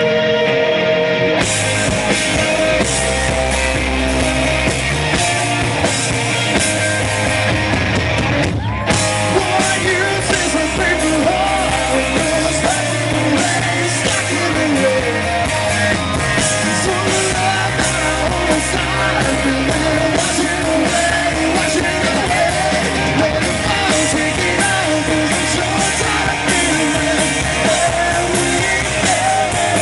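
Live rock band playing loud: electric guitar, bass and drums, with a male lead voice singing over them. The cymbals come in about a second in, and the whole band stops for a split second near nine seconds before carrying on.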